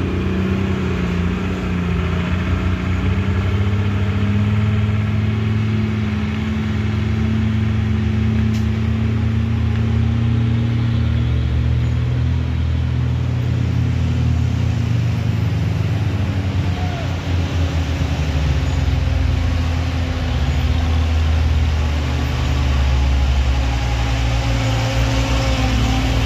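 Heavy diesel trucks' engines labouring uphill under load, a steady low drone that drifts slowly in pitch as they crawl up the grade, pouring out thick smoke.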